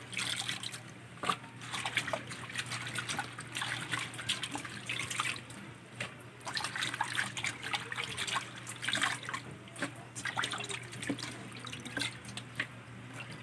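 Hands swishing and rubbing sweet potato leaves in water in a stainless steel bowl: irregular splashing and dripping throughout, the second rinse of the leaves. A steady low hum runs underneath.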